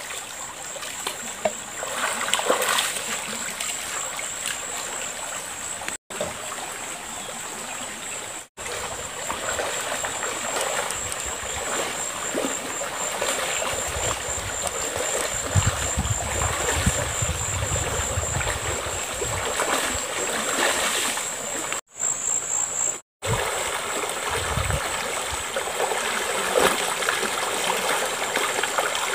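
Shallow river running over its bed, with splashing as someone wades and works her hands in the water. A steady high-pitched whine sits above the water sound.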